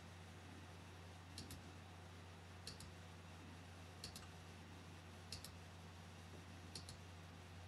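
Faint computer mouse clicks, each a quick press-and-release pair, five of them at roughly even spacing, over a low steady hum.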